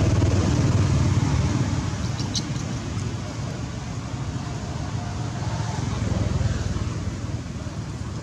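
Steady low background rumble with no clear event in it, and one faint tick about two and a half seconds in.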